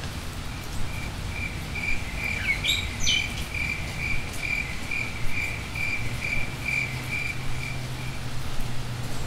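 Insect chirping in an even, steady pulse about twice a second, stopping about eight seconds in, with a short bird call about two and a half seconds in.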